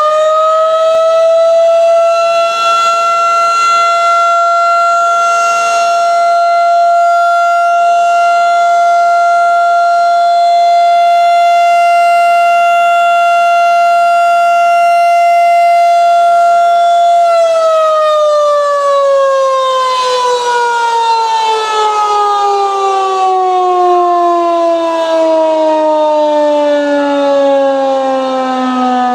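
Federal Signal 2001-DC outdoor warning siren sounding a steady alert test tone at full pitch. A little past halfway it begins winding down, its pitch falling slowly and steadily to the end.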